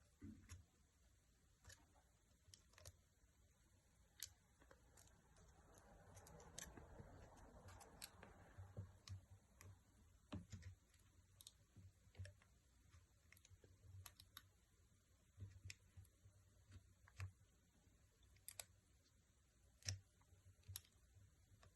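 Near silence with faint, scattered light clicks and taps at irregular intervals, and a soft rustle for a few seconds near the start, typical of small parts and tools being handled during a phone repair.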